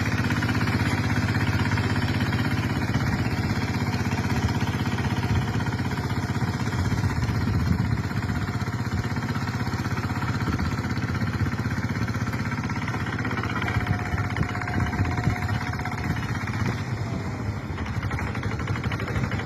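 Tractor engine running steadily under load while harrowing a wet rice paddy, with an even, fast pulsing.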